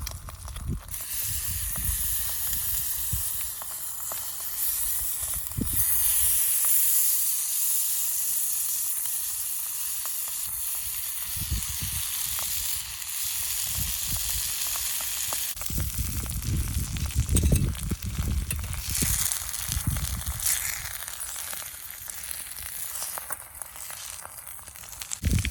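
Food sizzling in an iron frying pan over a campfire: a steady frying hiss, with low rumbles coming and going.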